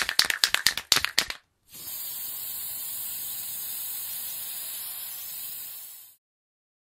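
Logo intro sound effect: a quick run of sharp clicks or taps, about seven a second, for the first second or so. Then a steady hiss for about four seconds, fading slightly and cutting off.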